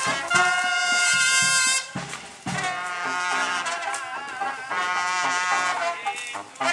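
A brass band playing, trumpets and trombones holding long chords, with a brief drop in the music about two seconds in before it picks up again.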